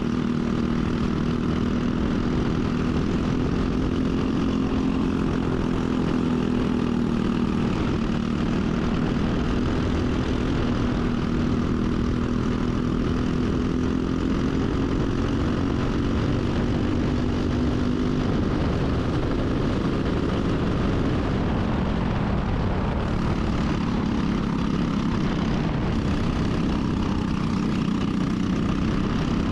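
Briggs & Stratton single-cylinder four-stroke kart engine running under racing load, its pitch rising and falling gently with speed; the engine note weakens after about 18 seconds.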